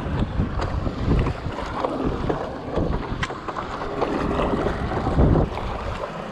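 Wind buffeting the action-camera microphone in gusts, with water splashing and lapping from paddle strokes on a stand-up paddleboard; the loudest gust comes about five seconds in.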